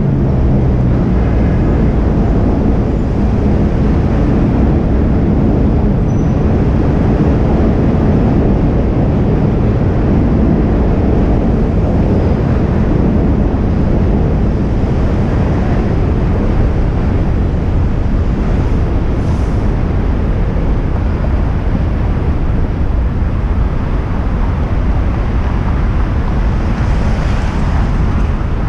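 Steady wind noise buffeting the microphone, with low road rumble, while riding an electric scooter (Segway Ninebot Max G30LP) at speed. Near the end the rush briefly turns brighter.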